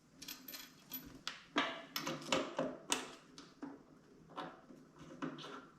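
Irregular light clicks and knocks of plumbing parts being handled and fitted while the sink's water hoses are connected.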